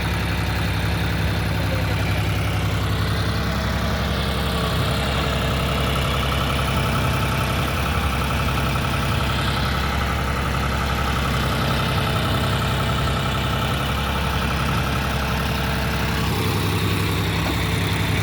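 John Deere 5310 tractor's three-cylinder diesel engine running steadily as it powers a backhoe loader at work, with a faint high whine over it through the middle and a change in the engine note near the end.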